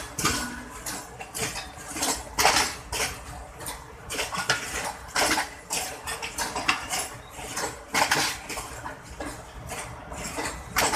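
Railway passenger coaches running past close by on the next track, their wheels clattering on the rails: irregular sharp metallic clanks and rattles, several a second, over a steady rumble.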